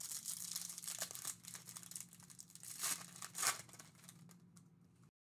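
Foil wrapper of a Topps Series 1 baseball card pack being torn open and crinkled by hand, with the loudest rips about three seconds in. The sound then fades and cuts off suddenly near the end.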